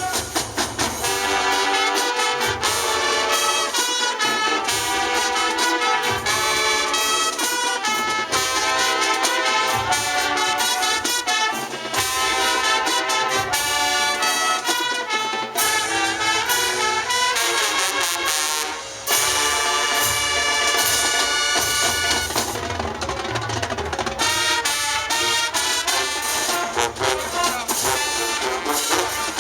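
High school marching band playing a loud brass-led tune, trumpets and trombones to the fore, with a brief break a little past the middle.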